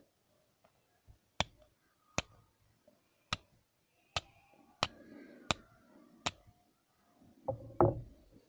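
Flint and steel striking: seven sharp, separate clicks, about one a second, as the steel is struck against the flint to throw sparks onto char cloth, then a louder thump and rustle near the end.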